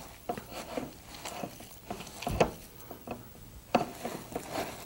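Hands squeezing and gathering soft powdered-milk gulab jamun dough in a glass bowl: faint, scattered soft squishing and rubbing, with a few light taps against the bowl.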